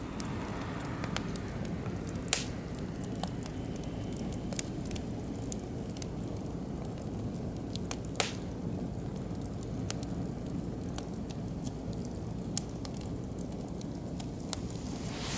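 Oak and beech wood fire burning in a barbecue grill: a steady low rush with sharp pops every few seconds, the loudest about eight seconds in.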